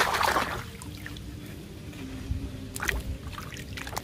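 A hand splashing and swishing a plastic toy animal around in a tub of water to wash it: loud splashing over the first half second, then quieter sloshing with another short splash nearly three seconds in.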